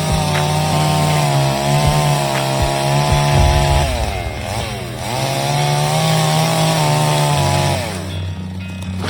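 Two-stroke chainsaw running at full throttle through a cut. Its revs dip and climb back about four seconds in, then fall away near the end. Music plays underneath.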